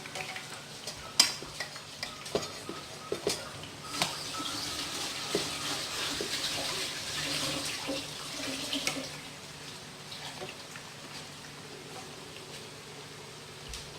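Breadfruit pieces frying in hot oil in a pan, hissing and sizzling, with a few sharp knocks of a utensil against the pan in the first few seconds. The sizzle swells about four seconds in and dies down again near the middle.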